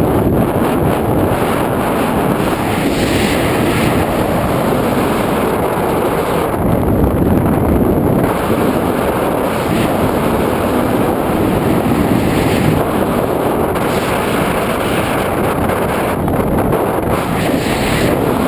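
Steady wind rushing over the camera's microphone during a tandem skydive under an open parachute canopy.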